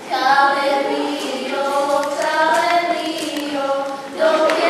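Group of girls singing a traditional Serbian folk song together in long, drawn-out notes, with a brief break for breath about four seconds in.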